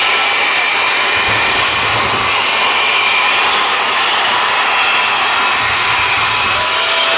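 Jet engine mounted on a show fire truck running steadily, blasting exhaust and flame at a burning car: a steady loud rush with a thin, high whine running through it.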